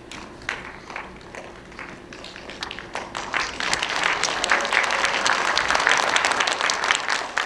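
Audience applauding: a few scattered claps at first, swelling into full, steady applause about three seconds in.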